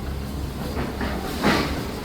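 Demolition machinery running with a steady low rumble, and one loud clank of metal or debris about one and a half seconds in.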